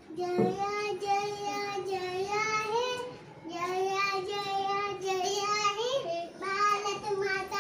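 A child singing in long drawn-out, high notes: three held phrases, with short breaks about three and six seconds in.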